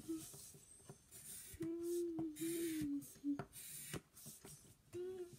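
A child's voice making a few drawn-out wordless tones, like humming, while a pencil scratches on paper, with a few light clicks and taps.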